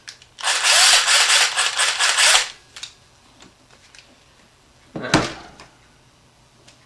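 Makita cordless drill fitted with a 1/8-inch bit, run for about two seconds with a rough clattering sound, then set down on the table with one thump near the end.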